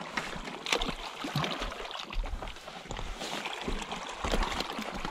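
Small sea waves lapping and trickling against a rocky shore, with a few light knocks.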